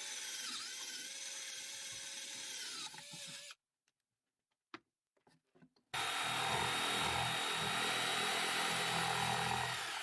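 A power tool cutting through wood runs for about three and a half seconds and stops. After a short pause it starts again, louder, about six seconds in.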